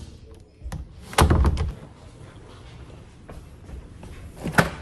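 A door swung shut with a heavy thud a little over a second in. Near the end, a sharper knock as the door of a stainless steel French-door refrigerator is pulled open.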